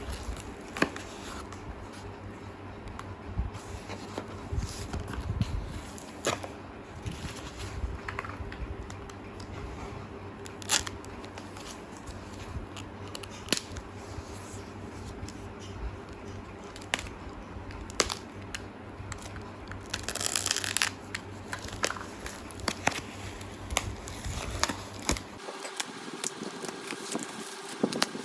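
Handling sounds: scattered clicks, scrapes and tearing, with a longer rustling tear about twenty seconds in, over a steady low hum that stops near the end.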